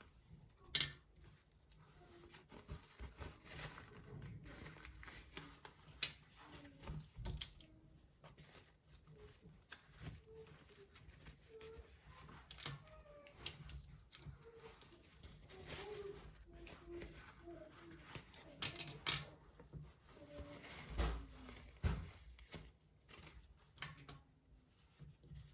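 Scattered light clicks and knocks of things being handled, a few of them sharper, with faint low voice-like sounds in the background.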